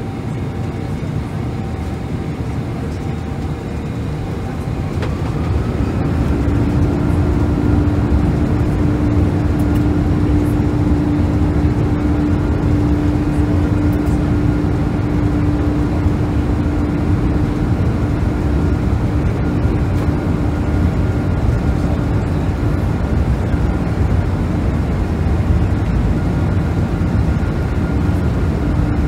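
The Boeing 747-436's four Rolls-Royce RB211 jet engines heard from inside the passenger cabin: a loud steady drone that grows louder about five seconds in as thrust is increased, with a slightly rising whine, then holds steady.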